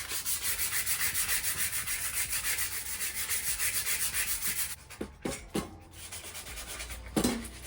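Hand sanding of a bare steel bike frame with scuff sandpaper, to take off flash rust: rapid back-and-forth scratchy strokes, about six a second. The sanding stops a little past halfway, and a few light knocks follow.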